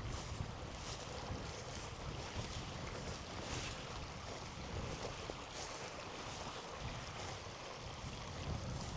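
Wind buffeting the microphone: a steady rumbling noise with a few faint scuffs.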